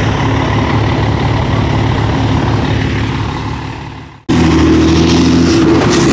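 Old Scania truck's diesel engine running with a steady low hum; the sound fades away about four seconds in and then comes back at once, idling steadily.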